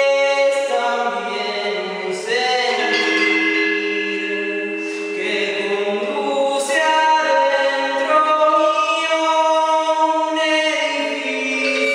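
Gamelan metallophone (gendér-type, bronze keys over bamboo resonators) played with mallets, struck notes ringing on and overlapping, with a voice singing a slow melody over it. The room is strongly echoing, so the tones blur into one another.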